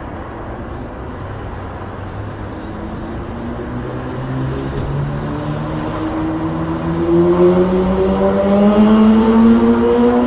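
Steady rumble of motorway traffic, with one vehicle's engine growing louder and rising slowly in pitch from about three seconds in, as it accelerates toward the microphone.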